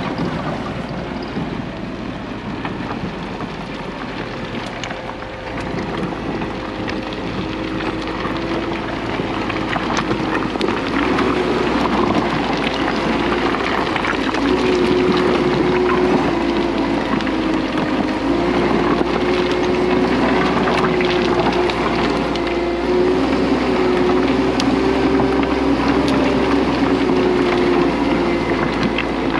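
Case 1650M crawler dozer's diesel engine working under load, its pitch stepping up and down, growing louder about six seconds in. Rock clatters and scrapes as the blade pushes riprap.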